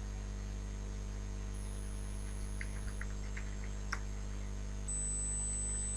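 Steady electrical mains hum from the recording setup, with a few faint keyboard taps in the middle and a single click a little later.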